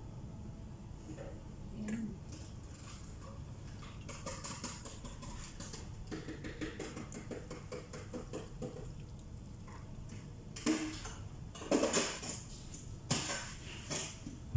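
A slotted spoon and a frying pan clinking and scraping against a plate as cooked broccoli and butter sauce are served, with a few louder knocks near the end.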